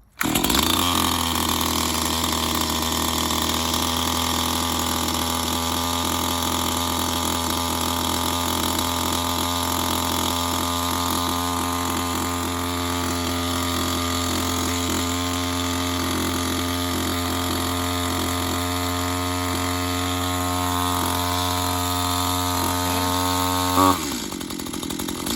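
STIHL MS211 two-stroke chainsaw engine firing on a pull at half choke after a cold start, then running steadily at the fast idle of the warm-up setting. Near the end the engine note changes and drops in level.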